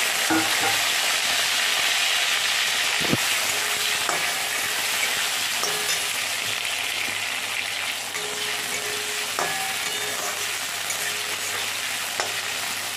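Cubed potatoes sizzling steadily in hot oil in a metal kadai, frying until browned, with a few sharp scrapes and taps of a metal spatula stirring them. The sizzle eases slightly toward the end.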